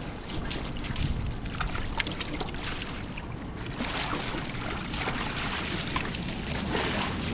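River water splashing and sloshing, with irregular sharp splashes.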